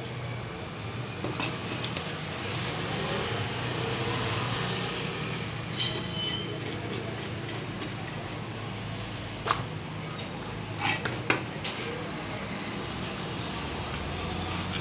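A large steel knife scraping scales off a tilapia on a wooden cutting board, with a run of sharp clicks a little past the middle and a few knocks of the blade on the board near the end. A steady low hum runs underneath.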